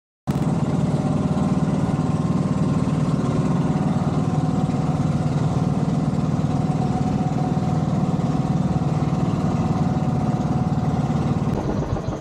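Outrigger boat's engine running steadily while under way, cutting in suddenly just after the start. Near the end the steady sound breaks up and becomes uneven.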